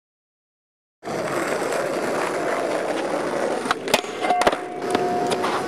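Skateboard wheels rolling on a paved street, a steady rumble starting about a second in. A few sharp clacks of the board striking the pavement come a little past the middle, and a thin steady tone sounds over the rolling near the end.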